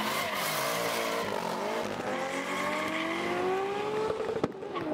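Car engine accelerating hard, its pitch rising steadily for a couple of seconds, then a few sharp cracks and a drop in pitch near the end.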